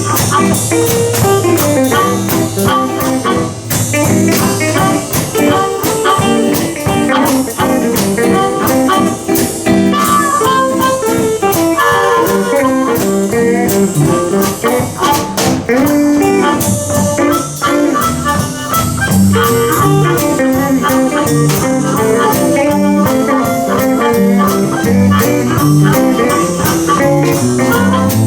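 Live blues band playing a fast shuffle in G without vocals: guitars over a drum kit keeping a steady beat.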